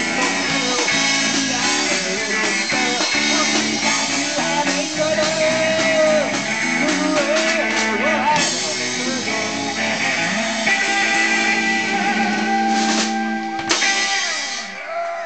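Rock band playing live: electric guitar, bass and drum kit, with singing. The song winds down near the end.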